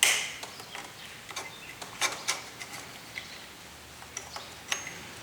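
A sharp metallic clack as the plunger spring is released from the caulk-gun disassembly tool, followed by scattered light clicks of small metal BB-gun parts being handled.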